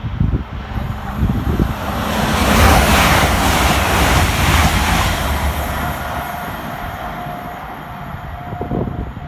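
Hitachi Class 800 Azuma express train passing through at speed: a loud rush of wheel and air noise that builds, peaks about three seconds in as the coaches go by, then fades as the train draws away.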